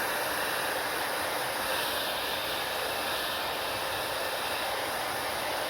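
Hair dryer blowing steadily, a constant rushing hiss of air.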